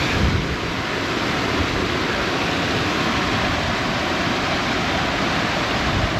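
Fast-flowing moorland stream rushing over rocks below a small waterfall: a steady, even roar of white water.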